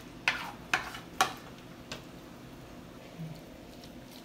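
A spoon scraping against a stainless-steel frying pan as cooked mushrooms are scooped out: three sharp scrapes in the first second and a half, and a lighter one about two seconds in.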